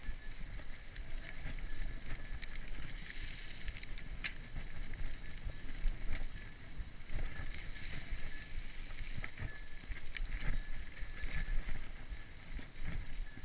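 Mountain bike rolling over a leaf-covered dirt trail: a constant low rumble of tyres on the ground, broken by frequent short knocks and rattles of the bike over bumps.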